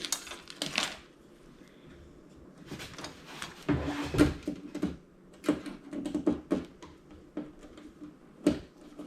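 Tape being peeled off inside a flat-screen TV, a brief rasping noise in the first second, then scattered irregular clicks, taps and clunks of plastic and metal parts being handled as the TV is taken apart.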